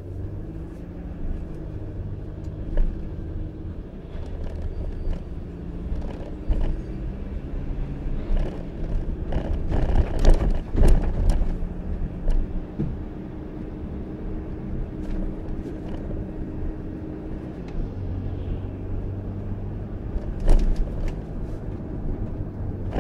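In-cab engine and road noise from a Mercedes Sprinter-based camper van driving over bumpy city streets: a steady low drone, with thumps as the wheels hit bumps, the strongest about ten seconds in and again near twenty. No rattles or squeaks from the body.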